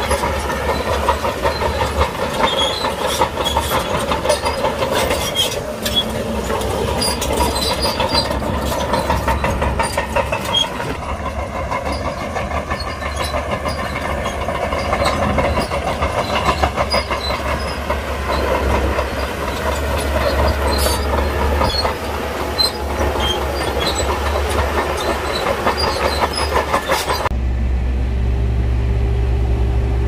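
Crawler bulldozer working: diesel engine running under a dense metallic clatter and squeak of the steel tracks. About 27 seconds in the clatter cuts off abruptly, leaving only a low, steady engine hum.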